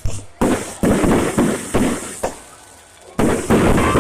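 Fireworks that have caught fire, going off as a rapid run of loud bangs and bursts. They ease into a brief lull about two seconds in, then a fresh loud burst comes near the end.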